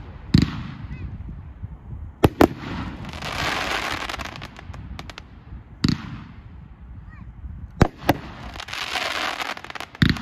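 Consumer fireworks cake firing a sequence of shots: sharp bangs every second or two, some in quick pairs, with two longer spells of dense sizzle from the bursting stars.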